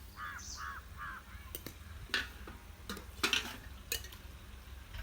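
Metal utensil knocking against a cooking pot, about five sharp clinks spread over a few seconds. Four short high chirps come in quick succession near the start.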